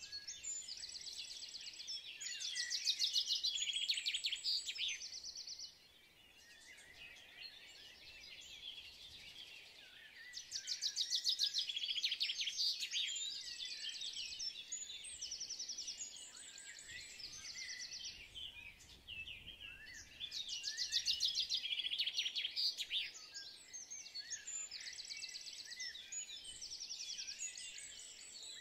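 Birdsong ambience: songbirds chirping and trilling, with louder bursts of rapid high trills about every nine seconds.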